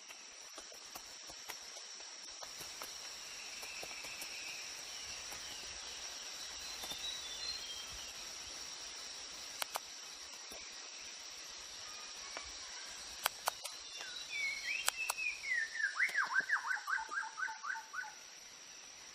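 Rainforest ambience in New Guinea: a steady high insect drone with scattered faint bird calls and a few sharp clicks. Near the end a bird gives a quick run of about ten short, falling call notes.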